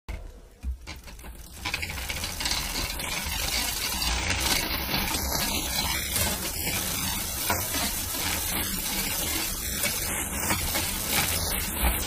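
Road bike's 9-speed chain running over the chainring and cassette as the cranks are turned with the rear wheel spinning free in top gear. It makes a steady gritty rattle (the ゴリゴリ grinding) that starts about a second and a half in, a sign of a stretched chain that no longer sits snugly on the chainring teeth.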